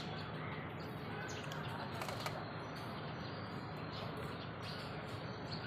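Heavy rain and wind: a steady hiss of rainfall with scattered sharper taps of drops striking nearby surfaces.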